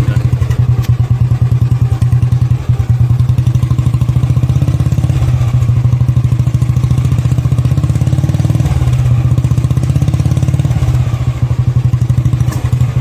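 Single-cylinder engine of a 1960 Royal Enfield Bullet idling steadily, a rapid even thump, having just started after a long struggle.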